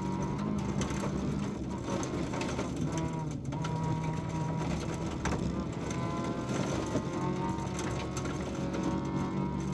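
VW Polo 1.4 16V four-cylinder rally engine running hard under load, heard from inside the cabin, its pitch rising and falling with a brief break a little over three seconds in like a gear change. Sharp clicks of gravel striking the car are scattered throughout.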